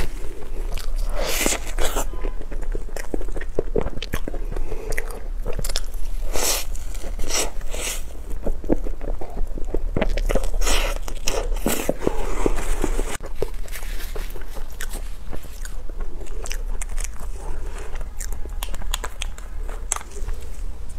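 Close-miked eating: biting into and chewing soft cream-filled durian crepe pastries, a run of many short wet mouth clicks with no talking. A steady low hum sits underneath.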